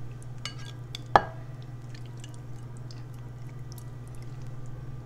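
Red jelly cubes tipped from a dish into a cut-glass bowl: faint soft taps as they drop, with one sharp knock about a second in, the loudest sound.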